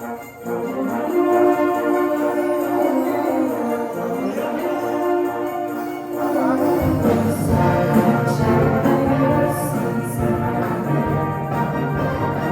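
Navy wind band playing a sustained orchestral passage with brass; about seven seconds in, low brass and percussion join and the music grows fuller.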